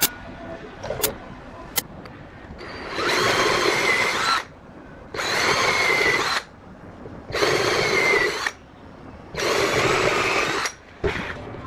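Electric drill run in four short bursts of about a second and a half each, its motor whine rising and falling with each trigger pull. A few sharp clicks come first.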